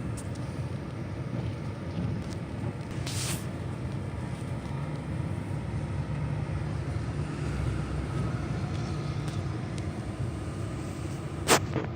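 Steady low rumble heard from inside a vehicle during a storm, with a brief rush of noise about three seconds in and a couple of sharp clicks near the end.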